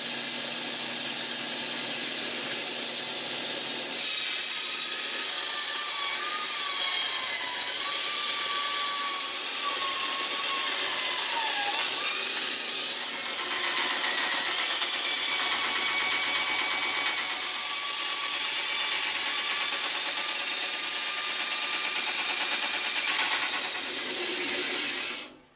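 Mastercraft benchtop bandsaw with a well-worn metal-cutting blade sawing through 3.2 mm aluminium sheet: a steady, high-pitched, screechy cutting noise with a wavering whine over it. It stops abruptly near the end.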